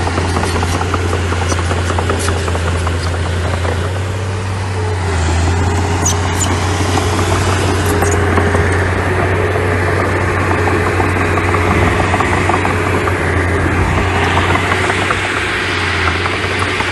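Engine of a small earthmoving machine running steadily with a deep hum, with scattered sharp clicks and clanks, mostly in the first few seconds and a couple more later on.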